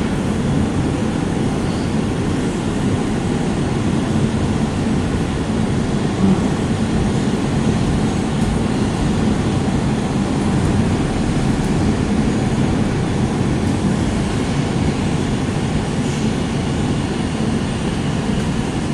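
R160 subway car running in a tunnel, heard from inside the car: a loud, steady rumble of wheels on rail with a low hum running through it.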